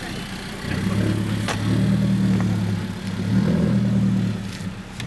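A car engine running and swelling in loudness twice: it rises about a second in, dips briefly, rises again after three seconds, then fades near the end.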